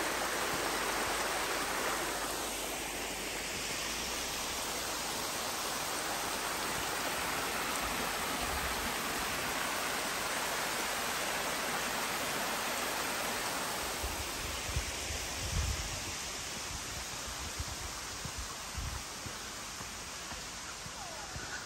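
Small waterfall and creek splashing over rocks: a steady rush of water that eases slightly in the second half. A few low thumps come in the last third.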